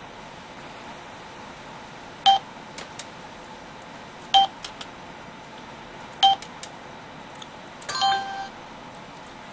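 Behavioural-task computer tones from a monkey maze (path-planning) task: three short electronic beeps about two seconds apart, each followed by a faint click or two. Near the end comes a longer multi-tone electronic chime lasting about half a second. A steady faint hum runs underneath.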